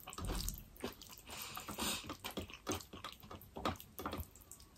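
Close-miked chewing and wet mouth sounds of a person eating, with irregular soft clicks and crackles.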